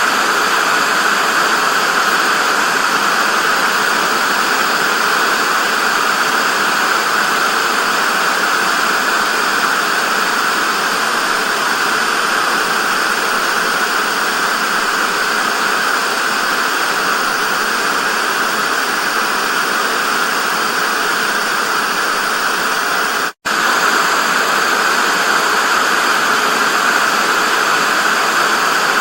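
TV static: a loud, steady, even hiss, with a split-second dropout to silence about 23 seconds in.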